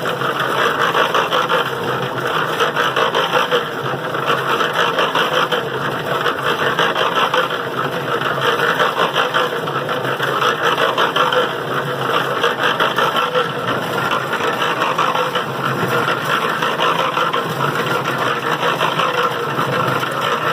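Harbor Freight electric cement mixer, converted to a carrot washer, running steadily: a constant motor-and-gear hum under a dense clatter of water and carrots tumbling against the rubber plucker fingers in the turning drum.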